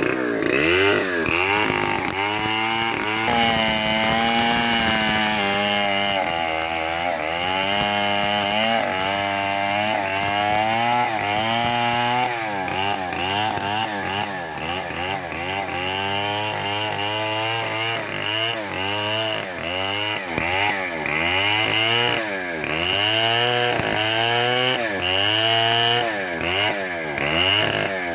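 Homemade chainsaw ripping a mango log lengthwise into plank stock, running continuously under load, its engine pitch repeatedly dipping and climbing back as the chain bites and clears in the cut.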